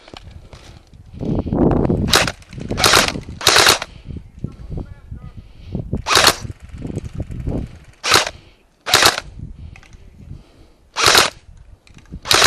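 Airsoft rifle fire in about eight short, sharp bursts spread unevenly, with handling and movement noises between them.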